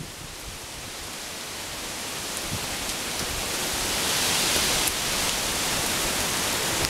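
Hurricane wind with driving rain: a steady hiss that grows gradually louder, peaking about four to five seconds in.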